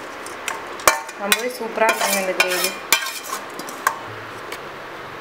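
A metal spoon scraping fried shallots and tomatoes out of a stainless-steel pan into a steel mixer-grinder jar, with a few sharp knocks of metal on metal.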